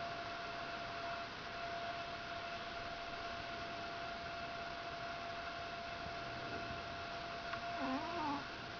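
Sleeping pet giving a short, wavering whimper near the end while dreaming, over a steady high-pitched hum.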